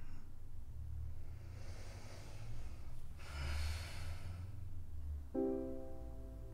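A man breathing in deeply and letting out a long, heavy sigh, over a low steady hum. About five seconds in, a sustained piano-like music chord comes in.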